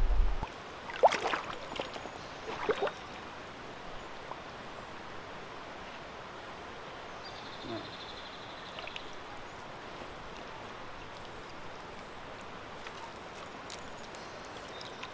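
Shallow river water flowing steadily, with a few sharp splashes in the first three seconds.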